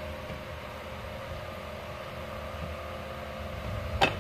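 A steady low hum with faint steady tones, and one sharp knock near the end as a dough-wrapped burger is set down on a steel plate.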